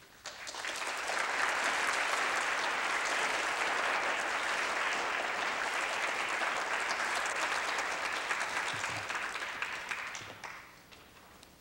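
Audience applauding steadily, dying away about ten seconds in.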